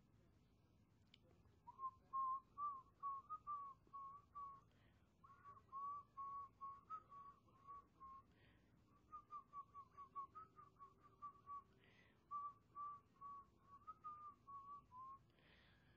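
A person whistling a tune of quick, wavering notes in three runs, with short pauses between them, starting about two seconds in.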